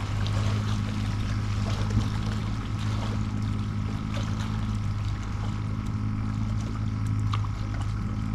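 A boat motor humming steadily at a low pitch, with a few faint clicks.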